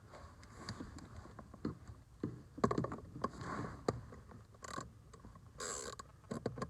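Irregular clicks, taps and short scraping sounds of a Phillips screwdriver working a stubborn screw out of a plastic steering column cover.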